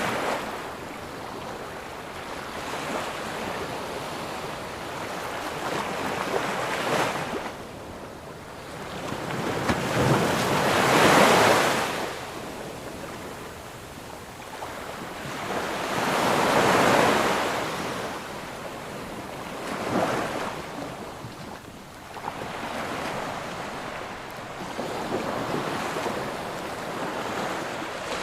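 Ocean waves breaking and washing up on a sandy beach, each surge swelling and fading over a few seconds, the two biggest about ten and sixteen seconds in, with a light wind.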